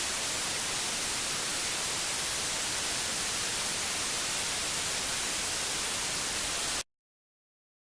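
Steady white-noise static from a broadcast station whose signal has dropped out as it loses power. The hiss cuts off abruptly to dead silence near the end.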